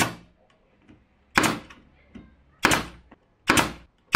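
Pneumatic nail gun firing into plywood about five times at uneven intervals of roughly a second, each shot a sharp crack with a short hiss of air.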